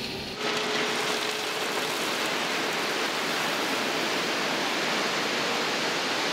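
A load of gravel sliding out of a tipped dump trailer bed in a steady rushing hiss, starting suddenly just under half a second in, with a faint steady hum underneath.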